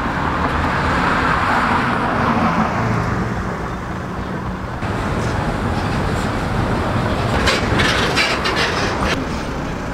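Road traffic passing close by on a multi-lane highway: steady tyre and engine noise from cars and trucks. It grows louder for a couple of seconds near the end as a heavy truck goes past.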